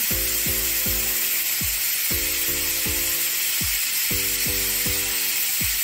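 Pressure cooker letting off steam with a steady hiss, under background music.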